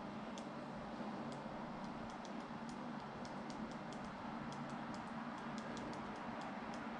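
Quick, irregular clicks of typing on a smartphone's touchscreen keyboard, about three or four a second, over a steady low background hum.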